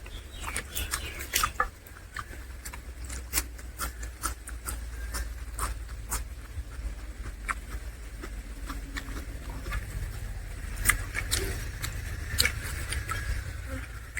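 Close-up eating sounds from a mukbang of mutton curry, fish fry and rice: irregular wet clicks of chewing and lip smacks, over a steady low hum.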